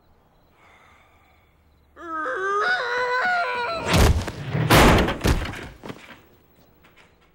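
A loud wavering yell about two seconds in, then two heavy crashing thuds as a man is tackled and slammed down onto pavement in a scuffle.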